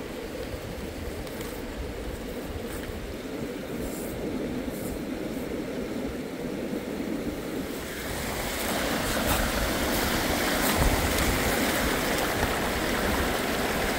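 Wind on the microphone with a few faint clicks of stones being handled, then from about eight seconds in the steady rush of shallow river water flowing over stones, louder.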